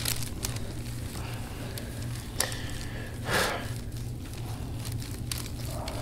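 Hands rubbing and pressing on an oiled bare back during a deep-tissue massage: soft skin-friction noise with scattered small clicks, and a brief louder whoosh a little past three seconds in, over a steady low room hum.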